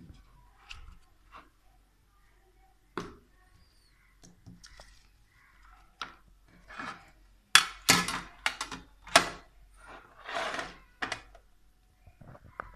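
Handling noise: a string of irregular clicks, knocks and short rustles as the power bank and its packaging are handled, densest and loudest a little past halfway.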